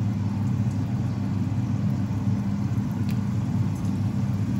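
A steady low hum, over the faint sizzle of dough dumplings frying in shallow oil, with one light click about three seconds in.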